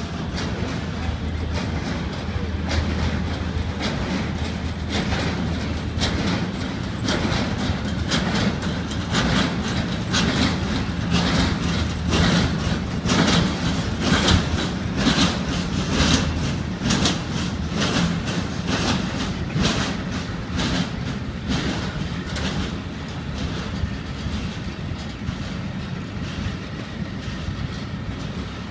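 Container freight train rolling past: the wheels of its container flat wagons click and clatter over rail joints above a steady rumble, the clatter thickest and loudest in the middle.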